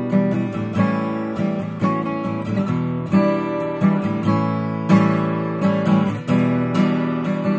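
A Bourgeois OMS 12-fret acoustic guitar, with an Adirondack spruce top and Madagascar rosewood back and sides, played solo: a steady run of chords and picked notes, each one ringing on.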